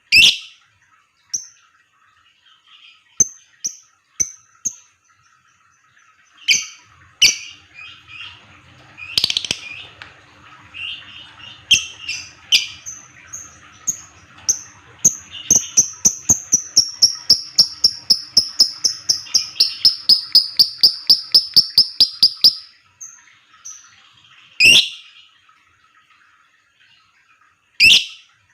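Lovebird calling: sharp, shrill single calls, then about halfway through a long rapid chatter of about five chirps a second lasting some eight seconds and falling slowly in pitch, the long 'ngekek' call used as bait to set other lovebirds singing. More shrill single calls come near the end.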